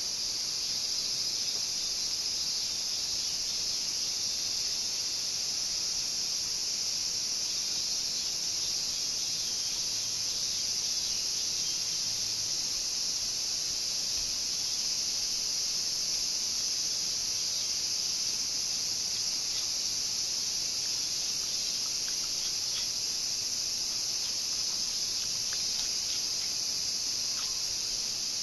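Steady, high-pitched buzzing of an insect chorus that does not let up, with a few faint ticks of a knife against the cutting board near the end.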